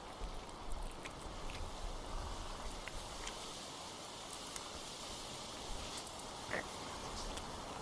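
Woodland outdoor ambience: a steady hiss with a low rumble of wind on the microphone, broken by scattered faint clicks and crunches, and one short sharper sound about two-thirds of the way in.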